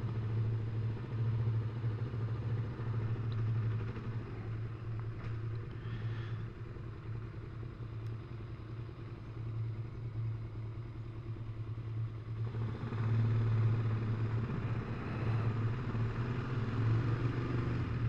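Motorcycle engine running steadily as a low, even hum with no revving. About twelve seconds in, a broader rushing noise grows louder and stays up.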